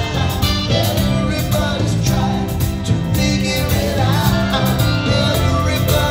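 Live band performance with a male lead singer singing into a handheld microphone over a steady bass line, drums and violin.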